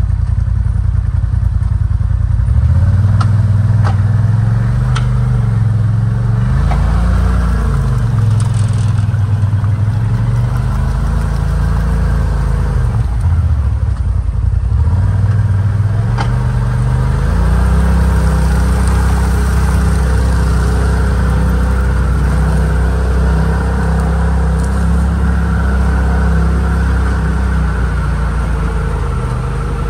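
Gravely riding mower's engine running continuously, its pitch dipping and rising several times, with a few light clicks a few seconds in.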